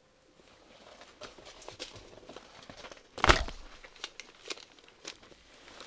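Rustling and crinkling of a plastic-film-covered diamond painting canvas and its cellophane-wrapped kit bags being handled, in scattered short rustles with one louder crackle and thump about halfway through.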